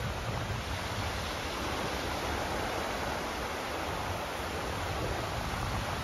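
Ocean waves breaking and washing on the shore: a steady hiss of surf with a low rumble beneath.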